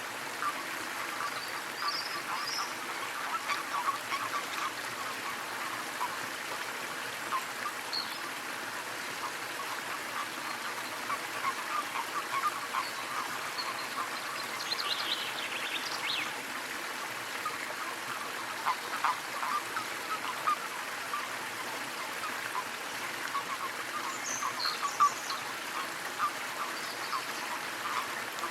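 Small waterfall splashing and trickling steadily, with brief high bird chirps now and then.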